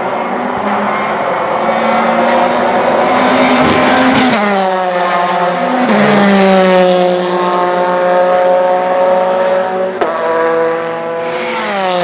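Porsche 911 RSR's 4-litre flat-six racing engine at high revs, rising in pitch as the car approaches, then dropping sharply as it passes about four seconds in. It holds a high note afterwards, with abrupt steps down in pitch near six and eleven seconds.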